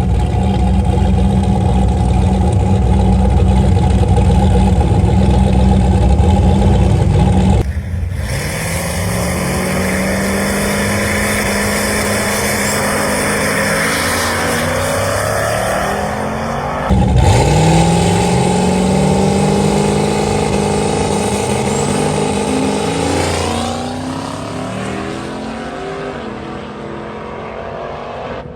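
Turbocharged 4.8 LS V8 in a Fox-body Mustang making a drag-strip pass. The engine holds a steady pitch for about eight seconds, then breaks off abruptly and climbs in pitch as it accelerates. It breaks sharply again about seventeen seconds in, climbs once more, and falls away near the end. The owner says this pass hit boost cut again from boost creep, too much boost.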